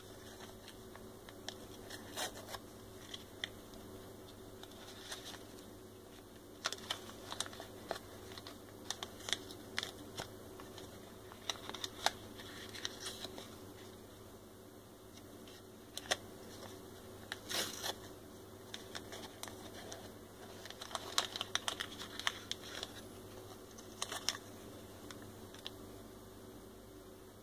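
Hands unpacking a screen protector kit: crinkling packaging, dust-removal stickers peeled off their backing, and small clicks and taps as pieces are handled and set on the table. These come as scattered short sounds over a faint steady hum.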